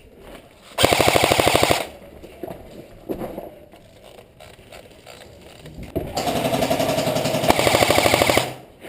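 Airsoft electric gun firing on full auto, rapid rattling clicks in two bursts: a short one of about a second near the start, and a longer one of about two and a half seconds beginning about six seconds in.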